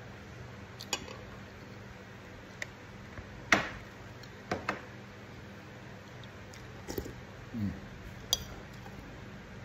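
Metal spoon clinking and scraping against a ceramic soup bowl: a handful of sharp clinks spread out, the loudest about a third of the way in.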